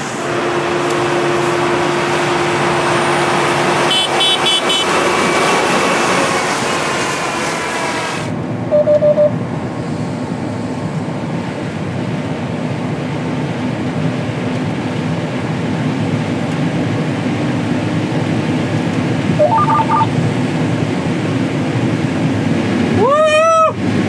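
John Deere combine harvester running: first a full, open engine noise, then after an abrupt change about 8 s in, a duller drone as heard inside the cab. Short electronic beeps sound a few times, and a loud rising whoop comes near the end.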